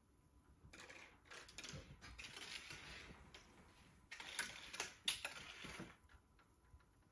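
A cat scrabbling and rustling on a floor mat and wooden floor, with a few sharp clicks and taps about four to six seconds in.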